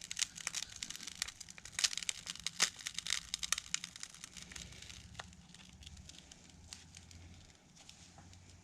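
The cracked glass and plastic body of an AT&T Calypso phone crackling and snapping as it is slowly bent by hand. There are dense small cracks for about five seconds, then only scattered ones.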